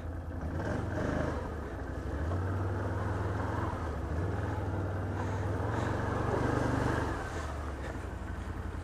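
ATV engine pulling under throttle through a muddy trail water hole. It revs up about a second in, holds higher from about two seconds, and eases back near the seven-second mark.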